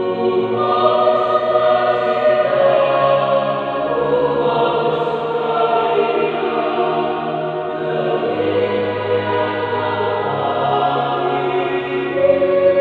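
Choir singing a hymn in held, sustained chords.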